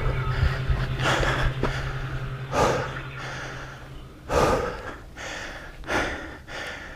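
A mountain biker breathing hard, a heavy, noisy breath about every second and a half, out of breath after riding a rough downhill section.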